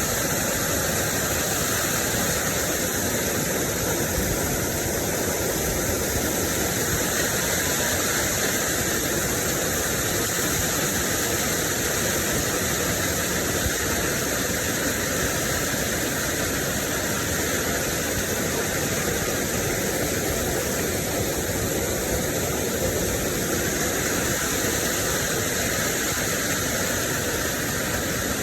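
Steady rushing water of a waterfall or river rapids, an even noise that does not change.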